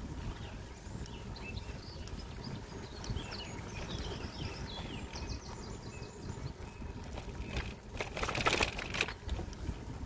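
Small songbirds chirping and trilling in quick, overlapping phrases over a low wind rumble on the microphone. About eight seconds in, a brief loud rush of noise lasting about a second drowns them out.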